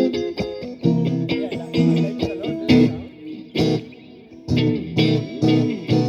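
A band playing an instrumental passage, led by electric guitar with bass, with no singing. The notes bend in pitch, and the music drops back briefly past the middle before coming in again.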